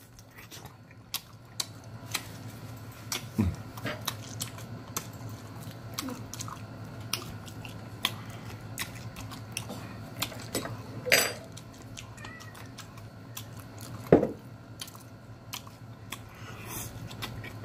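Close-up mouth sounds of a person biting and chewing a smoked chicken leg: many small wet clicks and smacks. Twice, briefly, a short vocal sound comes through, about 11 and 14 seconds in.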